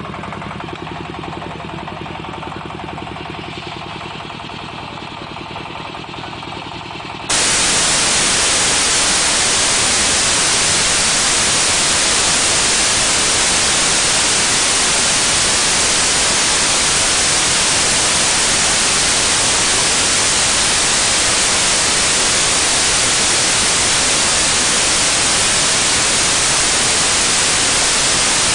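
Diesel engine of a 22 hp hydraulic drilling rig running steadily. About seven seconds in, the sound cuts abruptly to loud, even static hiss that continues unchanged.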